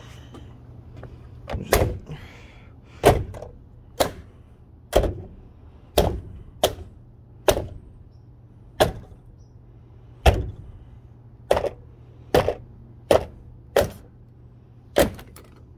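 Hand tool striking an old radio over and over: about fourteen hard, sharp blows, roughly one a second, as the radio is smashed apart.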